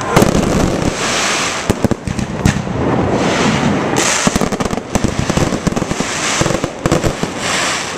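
Aerial fireworks bursting in a rapid, unbroken run of bangs and crackling.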